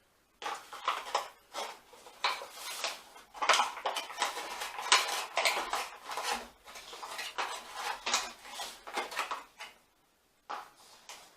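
A spoon stirring and scraping a reconstituted freeze-dried meal inside its foil pouch, with the pouch crinkling. It is a run of irregular scrapes and clinks with a short pause near the end.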